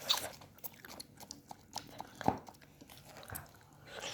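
Someone eating freshly fried potatoes: faint, irregular crunching and chewing with scattered small clicks.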